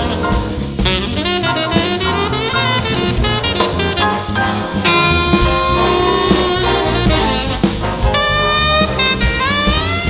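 Instrumental jazz music, a horn carrying the melody over drums.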